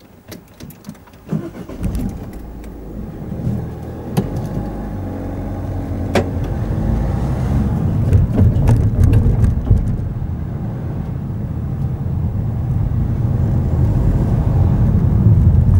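Car heard from inside as it pulls away and drives over a level crossing and on along a lane: a few clicks in the first second, then engine and tyre rumble that starts about a second in and grows steadily louder, with occasional knocks and bumps.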